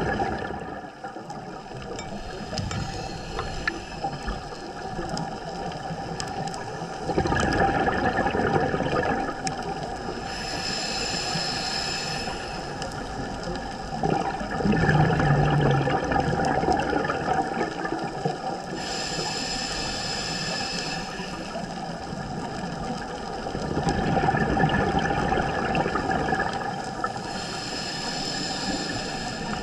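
Scuba diver breathing through a regulator, recorded underwater: three breaths, each a rush of exhaled bubbles followed by the hiss of the next inhale, about every eight or nine seconds.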